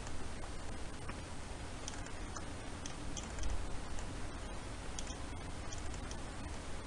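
Scattered soft clicks of a computer mouse and keyboard over a steady hiss and low hum of the microphone.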